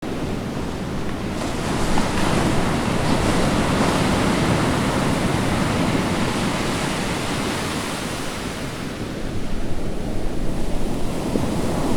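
A loud, steady rushing noise with no clear tone, swelling about two seconds in and again near the end.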